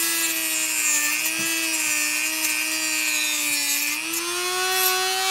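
Craftsman rotary tool with a cut-off wheel running at high speed and cutting through a plastic mounting tab on the back of a car badge. It makes a steady whine with a hiss of cutting over it. The pitch sags a little under the load of the cut and climbs back up about four seconds in as the wheel comes free.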